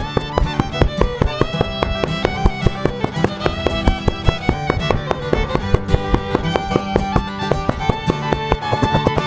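Background music: a fast tune led by a fiddle over a quick, steady beat.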